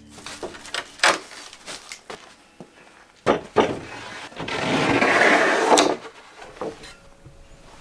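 Sharp wooden knocks as a large pine board is handled on a wooden workbench, then a longer scraping slide of the board across the bench top around five seconds in.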